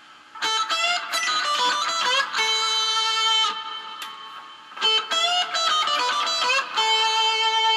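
Electric guitar riff from a Gibson Les Paul's humbucker pickups through a Marshall MG30 combo amp with the gain set low and a wah pedal parked toe-down. The same riff is played twice, each pass a quick run of notes ending on a held, ringing note, with the pickup toggle switch in a different position for each pass.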